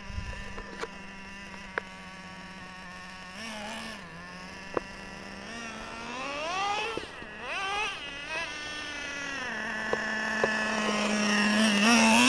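Traxxas Slayer Pro 4x4's TRX 3.3 nitro engine idling with a steady buzz, then revving up and down in rising and falling glides as the truck drives, settling back to idle and revving up again near the end. A few sharp clicks near the start.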